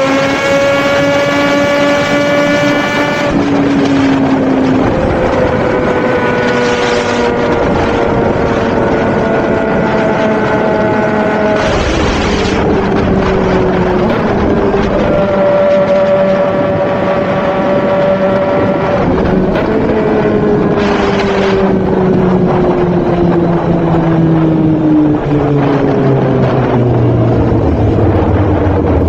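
Superbike engine running hard at high revs over heavy wind noise. Its pitch glides slowly up and down, with a few sudden jumps.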